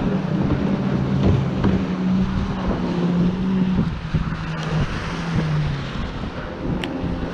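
Outboard engines of RNLI inshore lifeboats running at speed close inshore, a steady drone whose pitch shifts a little as the boats manoeuvre. Wind on the microphone and waves breaking on shingle underneath.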